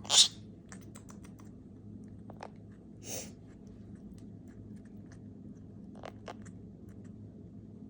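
Half-moon conure biting and crunching pasta with its beak: scattered small sharp clicks and cracks, with a louder crunch right at the start and another about three seconds in.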